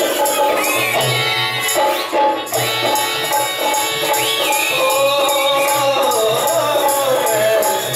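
Live Rajasthani folk music: a harmonium playing sustained reedy chords, with rhythmic percussion and a few high sliding whistle-like tones over it.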